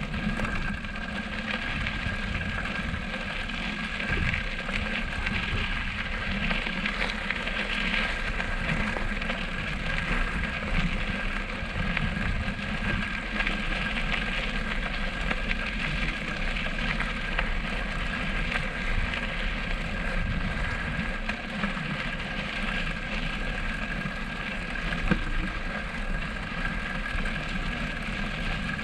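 Bicycle ridden over a rough, stony sand track: steady crackling and rattling of tyres and bike over stones, with a low buffeting rumble and a thin steady high tone.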